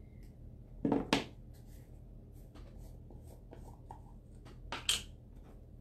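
Light tabletop handling sounds: soft scattered clicks and taps as a plastic jar of chalk paste and a small plastic squeegee are picked up, with a louder knock about a second in and another near the end.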